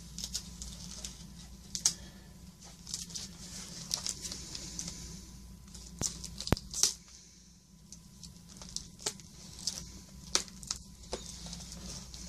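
Hands working open a taped cardboard mailer: irregular clicks and scrapes with short bursts of tearing and rustling.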